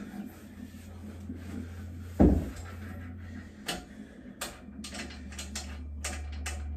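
Steel dip bar tipped over and set down on its side on carpet, landing with one heavy thud about two seconds in. A string of light clicks and taps follows as the bar is handled, over a low steady hum.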